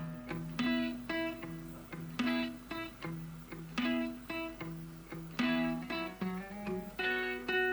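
Background music: a plucked guitar picking out notes in a slow, even rhythm.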